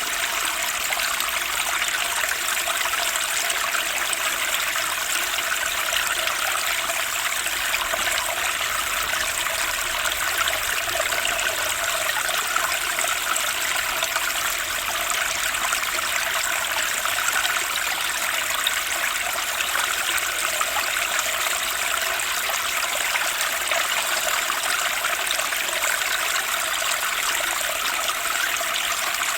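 A fast-flowing spring stream: water rushing and splashing over rocks in a steady, unbroken wash.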